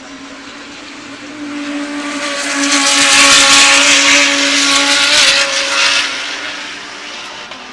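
GT3 race car engine at speed, growing louder as it approaches, passing at full volume about three to four seconds in, then fading away.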